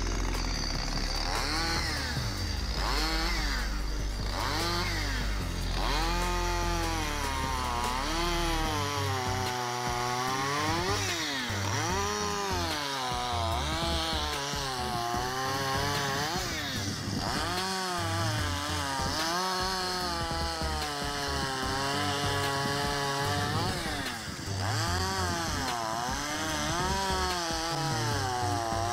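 Chainsaw cutting logs, its engine pitch rising and dipping again and again as it revs and slows under each cut. Background music plays underneath.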